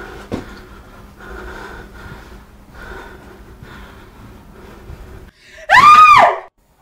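Slow, heavy breathing, one breath about every second and a half. Near the end comes a loud, high scream that rises and then falls in pitch and cuts off abruptly.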